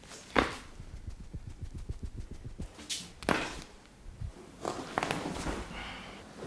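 Hand strikes of a head and back massage: a sharp slap, a fast run of low pounding thumps, then several more sharp slaps.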